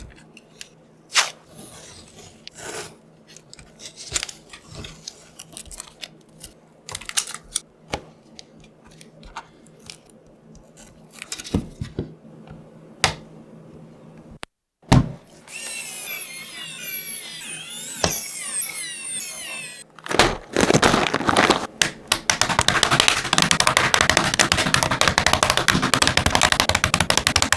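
Parts of a GamaKay LK67 keyboard kit being handled and assembled: scattered plastic clicks and knocks, then after a short break a few seconds of scraping and rustling. From about 20 seconds in comes a dense, continuous run of rapid clicking.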